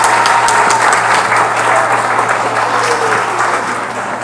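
Audience applauding, a dense patter of many hands clapping, easing off a little near the end.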